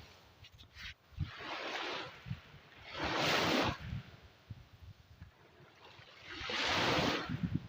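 Ocean waves breaking and washing in, three surges, the loudest about three seconds in, with low irregular thuds of wind buffeting the microphone.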